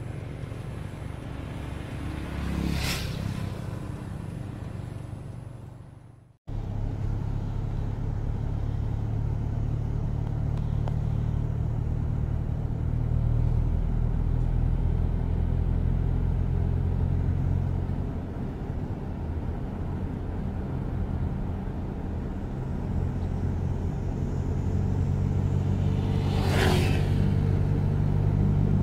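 Vehicle engine running with steady road rumble while driving, with a brief whoosh about three seconds in and another near the end. The sound drops out for a moment about six seconds in.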